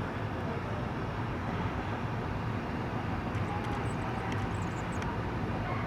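American Standard air handler's blower running: a steady, even fan-and-motor hum that sits low in pitch. A few faint high chirps come in about three and a half seconds in.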